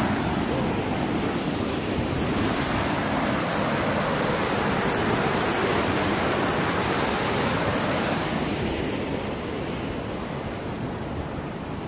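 Whitewater rushing over a rocky waterfall cascade, a steady rush of water noise that becomes quieter about eight seconds in.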